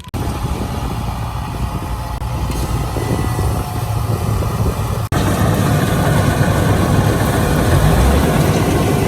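Farm machine engine running steadily with a heavy low rumble, breaking off for an instant about five seconds in.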